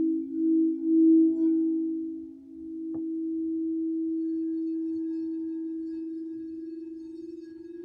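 Singing bowl ringing with a sustained pure tone that pulses and wavers for the first couple of seconds, then settles into a steady hum that slowly fades. A brief light click about three seconds in.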